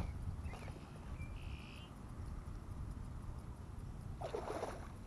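A common carp being slipped back into the pond: a brief splash near the end, over steady low wind rumble on the microphone. A short high chirp comes about a second and a half in.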